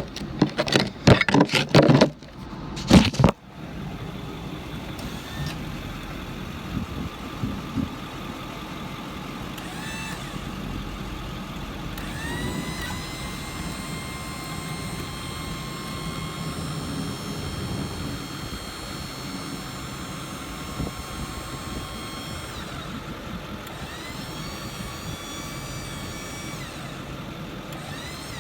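Metal clanking as the crane hook is unhooked, then the 6.4 Power Stroke diesel idling steadily while the truck's Liftmore crane is worked. The crane's drive whines up and holds twice, about 12 and 24 seconds in.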